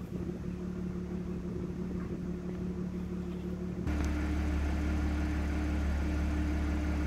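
A 2012 Audi A6 (C7) with its muffler deleted idling steadily after a cold start. The exhaust drone holds an even pitch without revs. About four seconds in, the sound cuts abruptly to a louder, deeper drone.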